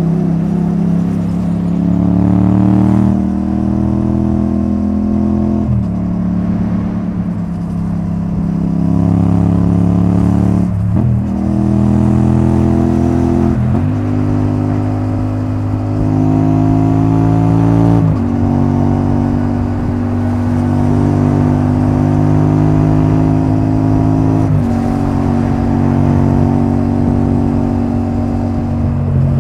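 Yamaha XSR700's CP2 parallel-twin running through a debaffled Akrapovic titanium exhaust, cruising on the road. The engine note holds steady, its pitch shifting abruptly several times as gears change.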